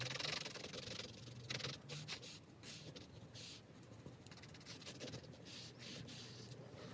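Faint scratching of a Derwent Inktense Lime Green pencil lead on paper, in short repeated strokes as a swatch is coloured in.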